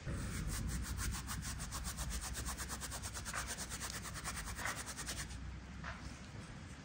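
Dried herbs crumbled and rubbed between fingertips over a pan, a dry crackling rustle in a fast, even rhythm that stops about five seconds in.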